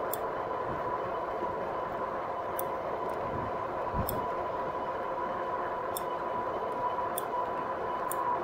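A 2018 Rad Power Bikes RadMini electric bike riding along at a steady speed: a steady hum with a faint even whine, with a few faint ticks scattered through it.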